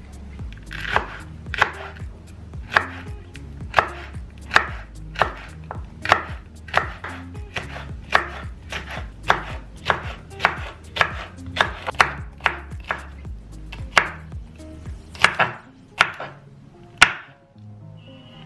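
Knife chopping on a cutting board: a steady run of sharp chops, one or two a second, stopping near the end.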